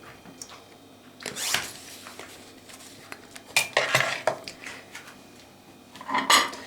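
Hard objects being handled: scattered clinks and knocks in three short clusters, about a second in, near the middle and near the end.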